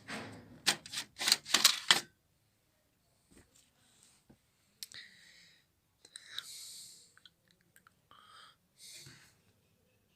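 Plastic printer casing being handled and opened: a quick run of sharp clicks and knocks in the first two seconds, then scattered clicks and short scraping rubs.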